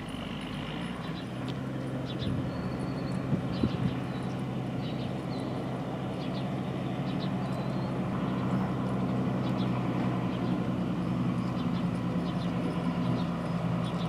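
An engine running steadily, a low hum that grows slightly louder in the second half. A few short, faint high chirps sound over it.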